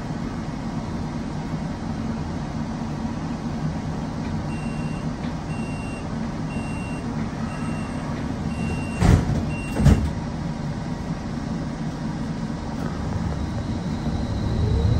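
Streetcar standing at a stop with a steady low hum. A series of short high beeps runs at about two a second, and two thuds land near the end of the beeps, the door warning and the doors closing. Near the end the traction motors start a rising whine as the car pulls away.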